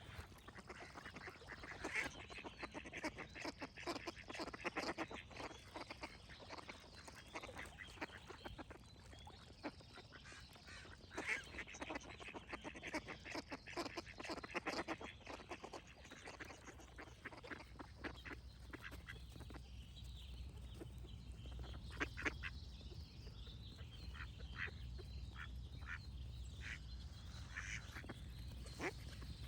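Ducks quacking in quick, dense runs, thinning to scattered single quacks in the second half. A low steady rumble comes in about halfway through.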